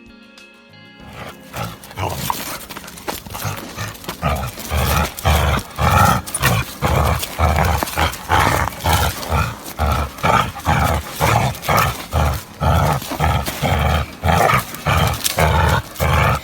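A dog barking over and over, about two barks a second, starting a few seconds in.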